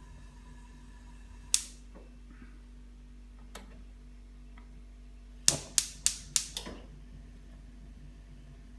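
Spark igniter of a Bocuse Prodige range cooker's gas burner clicking: one sharp click about a second and a half in, then a quick run of five clicks about a quarter second apart as the small burner is lit.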